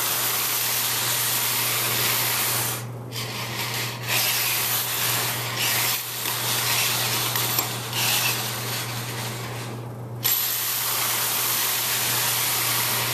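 Metal Slinky spring being pushed back and forth along a tabletop, its coils rattling against each other and rubbing on the table as compression waves run down it; the rattle breaks off briefly twice.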